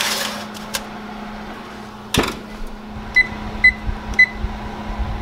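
Foil-lined baking tray sliding onto an oven rack, then the oven door knocking shut about two seconds in. Three short beeps follow from the electric oven's touch control panel as its keys are pressed, over a steady low hum.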